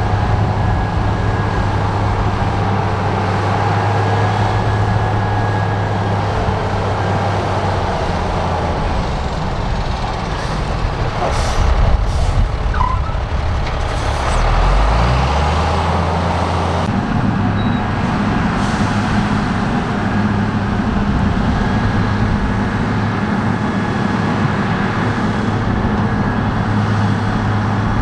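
Heavy diesel earthmoving machine engine running steadily. Around the middle the engine note changes and glides, with a couple of brief hisses, then it settles back into the same steady drone.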